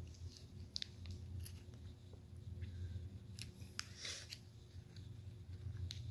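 Faint scattered clicks and rustles of someone eating a Pulparindo tamarind candy: the plastic wrapper is handled at the mouth and the soft pulp is chewed. A steady low hum runs underneath.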